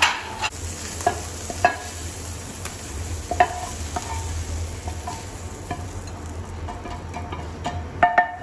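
Slotted spatula scraping browned beef cubes out of a hot frying pan onto a ceramic plate: irregular clinks and scrapes against the pan, the meat still sizzling lightly. A steady low hum runs underneath.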